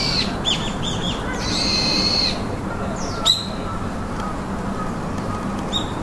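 Birds calling: high whistled notes held for about a second, a few short falling chirps, and a sharp, louder call a little past halfway.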